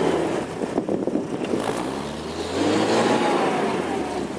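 UAZ off-roader's engine revving as it sits stuck in deep snow with its wheels spinning and throwing snow. The revs drop about a second in, climb again, and ease off near the end.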